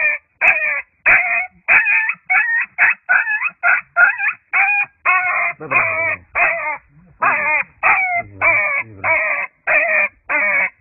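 Injured puppy yelping and screeching in pain, a rapid string of short high cries, about two to three a second, almost without a break, as it is held down with a leg hurt by a landmine.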